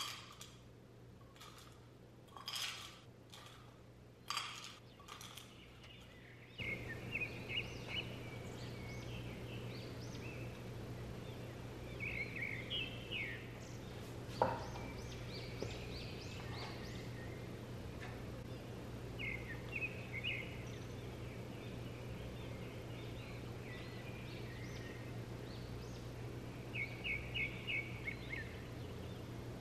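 A metal spoon clicking and scraping against thin plastic cups a few times. From about six seconds in, birds chirp in short repeated trills over a steady low hum.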